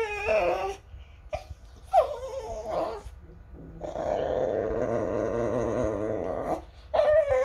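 Small white dog vocalising in protest as its ears are swabbed with a cotton bud: short 'woo' whines that fall in pitch, about three times, and a long wavering grumbling growl in the middle.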